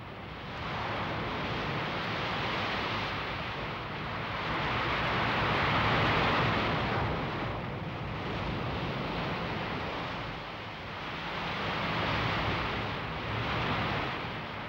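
Wind and heavy sea breaking over a ship's bow: a steady rushing roar that swells and fades several times, loudest about six seconds in.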